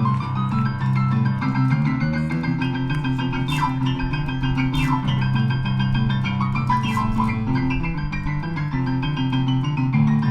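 Band playing an instrumental rock and roll passage, with piano or keyboard to the fore, guitar underneath and a few cymbal hits.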